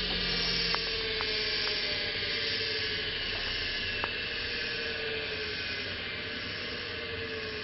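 Bench lathe's two-speed (3450/1725 RPM) split-phase or capacitor-start induction motor spinning down after being switched off. Its whine slowly falls in pitch and fades, with a few light ticks along the way.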